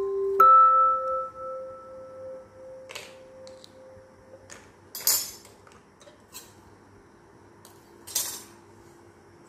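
Miniature stainless-steel toy dishes clinking as they are handled: a few light metallic clicks, the loudest about five and eight seconds in. Early on, a ringing note starts with a click and fades away over about four seconds.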